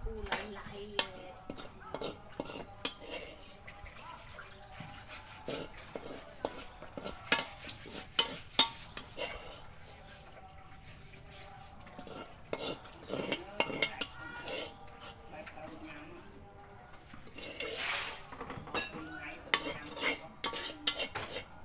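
Metal ladle scraping and clinking against a blackened wok as fried rice is scooped out onto a ceramic plate, in scattered short scrapes and taps.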